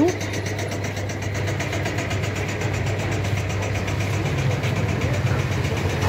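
Electric motor of a large industrial washing machine running with a steady low hum and a fast, even pulsing.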